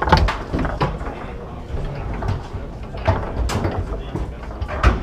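Foosball table in play: the ball cracking off the plastic men and table walls and the steel rods sliding and knocking against their bumpers, in a run of sharp, irregular clacks.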